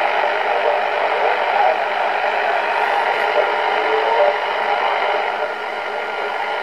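Audio from a BC-348-N valve HF receiver: steady band noise and static, with faint warbling signals wavering in the hiss.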